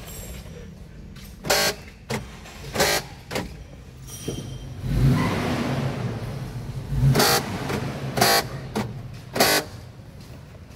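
Central door-lock actuators of a 2018 Mitsubishi Xpander buzzing in short bursts as the lock switch is worked again and again. This is the noisy door-lock sound being checked on the front-left door. A longer rushing noise comes in the middle.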